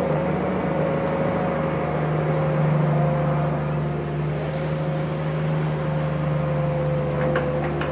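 Sumitomo excavator's diesel engine running steadily with a constant low hum, a few light clicks near the end.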